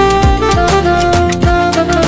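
Electronic keyboard playing a melody of held notes over a programmed drum beat, with a kick drum and light percussion.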